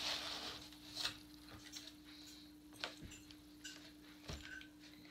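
Faint, scattered clicks and taps as a large jumping-spider Halloween prop is handled on its cardboard base, with light rustling in the first second, over a steady low hum.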